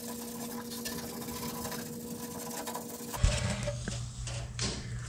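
Steady electrical or mechanical background hum with faint ticking. About three seconds in it cuts to a lower steady hum, with a sharp knock and a few clicks of handling.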